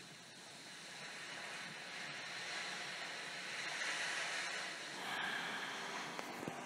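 Recorded ocean surf: a soft rushing hiss that swells over a few seconds, ebbs about five seconds in, then swells again.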